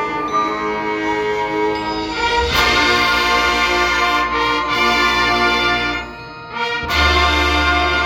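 High school marching band playing its field show, brass-led with sustained chords. The band swells louder about two and a half seconds in, drops away briefly near the end, then comes back on a loud full chord with heavy low bass.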